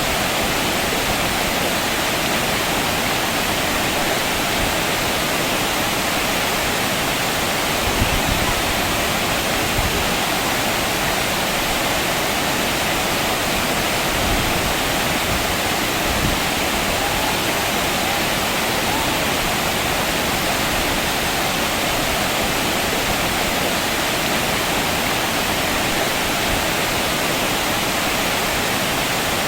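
Waterfall rushing in a steady, dense roar of falling water, with a few faint low bumps along the way.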